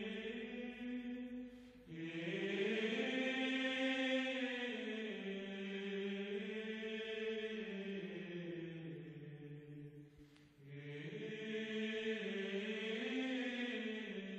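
Background music of slow chanting in low voices: long held notes that glide gently up and down in pitch, in long phrases with a short break about ten seconds in.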